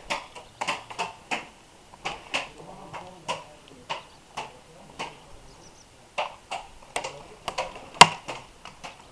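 Airsoft guns firing single shots: sharp clicking pops at uneven intervals, about one or two a second, with one louder, closer shot about eight seconds in.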